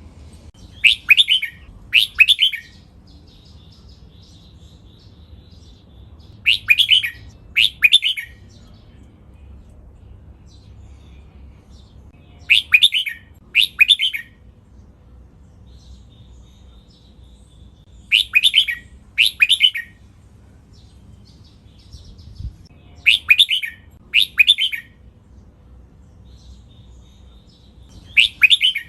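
Red-whiskered bulbul singing its doubled song: short loud phrases in pairs about a second apart, a pair every five to six seconds, with faint softer notes in between.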